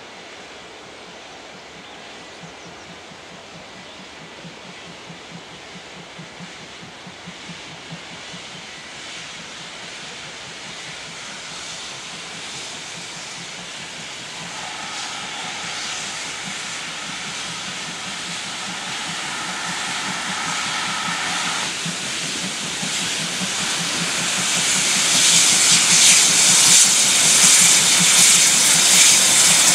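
Ex-GWR pannier tank steam locomotive No. 1501 working a train away with its cylinder drain cocks open, a loud hiss of steam over a pulsing exhaust beat. It grows steadily louder as the engine comes closer, and the hiss is loudest near the end. A faint steady tone sounds for several seconds midway.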